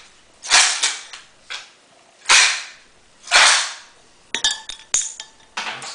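Ice cubes cracking and crackling as they go into a glass of hot tea, in three loud bursts about a second apart, from the heat shock. Near the end, several quick clinks of ice against the glass.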